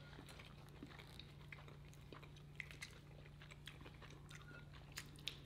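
Faint close-up chewing with small wet mouth clicks, over a low steady hum.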